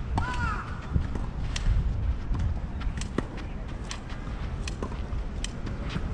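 Tennis being played: a string of sharp, irregular clicks of racquets striking the ball, the ball bouncing and shoes on the court, over a steady low rumble. A brief squeak sounds just at the start.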